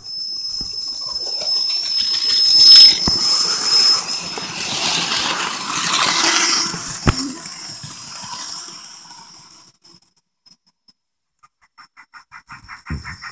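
Model train running past close by: a high electric motor whine and the rush of wheels on the track, growing louder, then fading away about ten seconds in.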